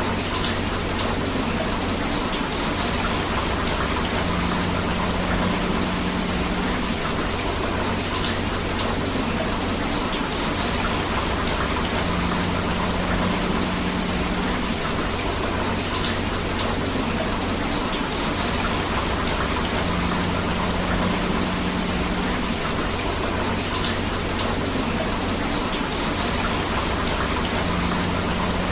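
Steady rain with rushing river water, an even, unbroken hiss. A faint low tone comes and goes about every eight seconds.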